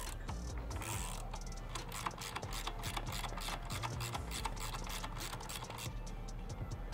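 Ratcheting wrench on a 17 mm driveshaft flange bolt at the differential, clicking rapidly in uneven runs as the bolt is backed out.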